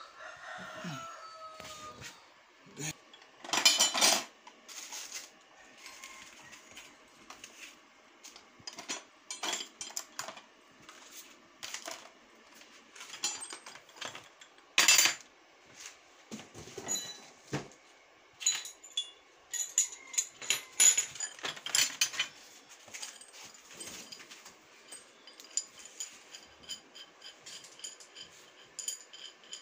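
Irregular knocks, clicks and light metallic clatter of industrial sewing machine parts and fittings being handled and set in place, with two louder knocks about four and fifteen seconds in.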